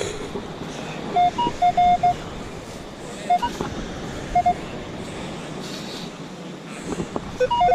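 Metal detector giving short, mid-pitched target tones in clusters of beeps as the coil sweeps over a buried target, with an occasional higher beep, over a steady hiss. The target reads as a coin, which he takes for a quarter.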